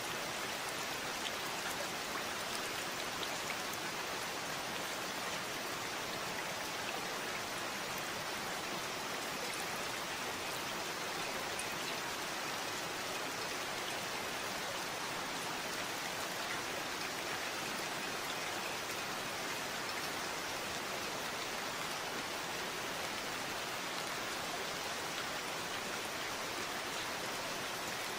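Steady rainfall, an even hiss of rain with faint individual drops ticking.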